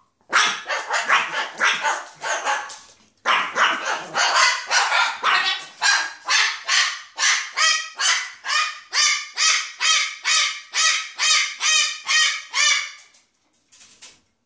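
A dog barking over and over in a steady run, about two barks a second, with a short break about three seconds in.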